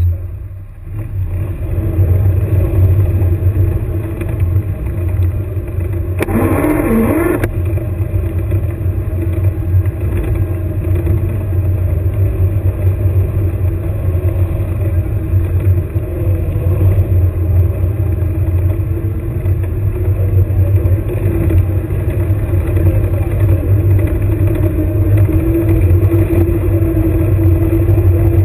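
Engine of an airsoft combat vehicle running steadily as it drives along, with a deep low rumble. A brief burst of noise, about a second long, cuts in about six seconds in.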